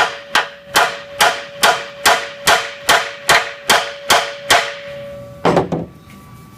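A hammer tapping on a steel vehicle frame rail: about a dozen even blows, two to three a second, with the metal ringing on a steady tone beneath them. The rail is being worked back into shape cold, without heat. A single duller knock follows just after five seconds.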